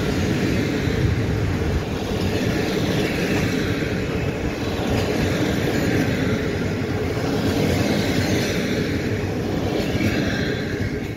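Passenger coaches of a departing train rolling past on the rails: a steady rumble of wheels on track.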